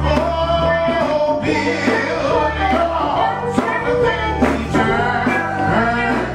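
Live gospel music: a man sings with a sliding, melismatic line over keyboard and bass guitar, with a steady beat underneath.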